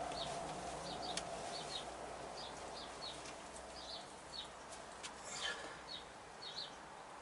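Small bird chirping repeatedly: short high chirps, often in pairs, roughly one or two a second, over a faint steady hum that stops about four seconds in. A single sharp click about a second in.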